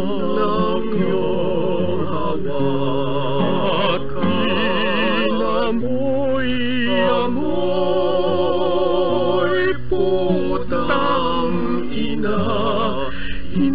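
A man singing a Filipino kundiman in long notes with strong vibrato, over acoustic guitar accompaniment.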